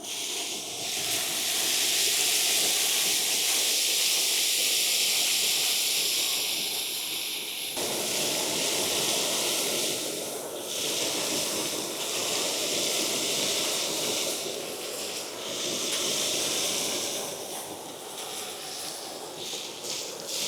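ECOBULL TAN industrial vacuum with a side channel blower running, a loud steady rush of air through the hose as it pulls up foundry debris and metal chips. The sound changes abruptly about eight seconds in to a fuller rush, and grows uneven near the end.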